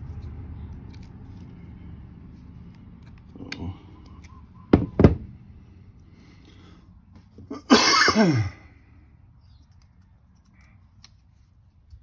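Pliers working a wire, with two sharp metal clicks close together about five seconds in. A few seconds later comes a brief rasp that falls in pitch.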